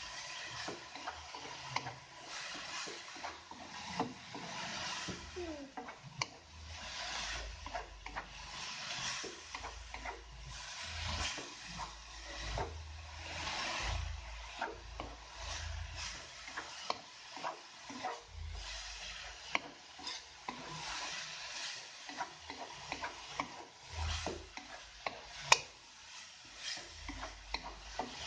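A wooden spatula stirs and scrapes grated coconut filling around a nonstick wok, with irregular small taps against the pan. One sharp knock comes near the end.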